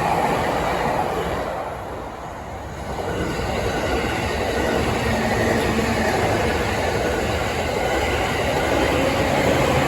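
A train passing along the track, a continuous rumble of wheels on rails that dips briefly about two seconds in and then builds back up.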